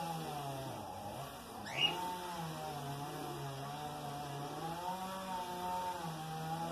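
A small motor runs steadily with a wavering pitch that sags briefly about a second in. Just under two seconds in, a bird gives one short rising chirp, the loudest sound.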